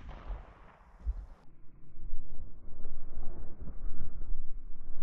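The echo of two quick over-under shotgun shots dying away. From about a second and a half in, an uneven low rumbling noise.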